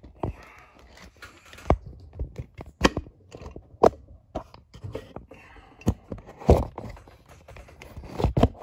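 A phone camera being handled and fitted onto a tripod mount: irregular clicks, knocks and scrapes of plastic and metal, with a few louder knocks about two thirds of the way through and near the end.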